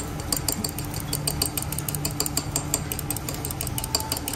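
Raw egg being beaten with metal chopsticks in a small ceramic dish: the chopsticks click rapidly against the dish, several strokes a second, starting a moment in.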